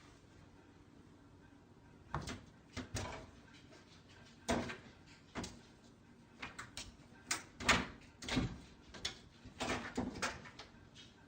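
A series of irregular knocks and bumps, about a dozen, starting about two seconds in, with short pauses between them.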